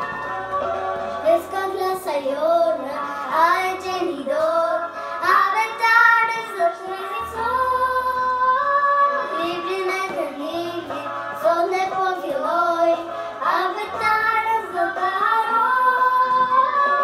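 A young girl singing a children's song over instrumental backing music with a steady, changing bass line.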